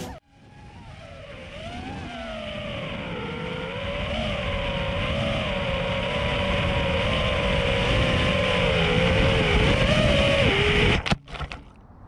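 A 5-inch FPV freestyle quadcopter's brushless motors and tri-blade propellers whining steadily, the pitch wavering up and down, over a rush of air noise. It swells in over the first few seconds and cuts off suddenly near the end.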